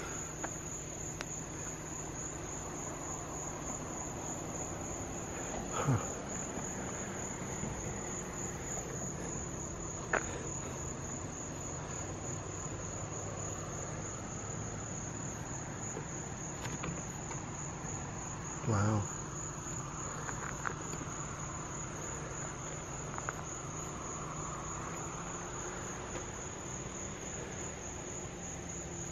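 Night crickets chirring in a steady, fast high trill, with a few short knocks, the loudest about two-thirds of the way through.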